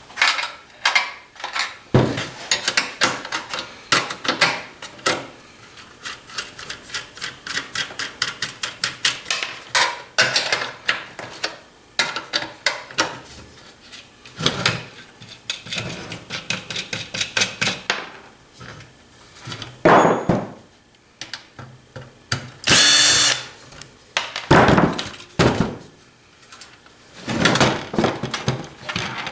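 Power drill/driver backing screws out of a satellite receiver's case: long runs of rapid clicking, a few separate knocks, and one short louder whir about two-thirds of the way through.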